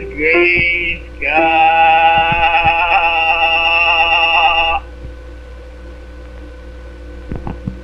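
A cartoon character's voice sings a short warbling phrase, then holds one long, loud note with a wide vibrato for about three and a half seconds. The note stops abruptly, leaving a steady low hum and hiss with a few clicks near the end.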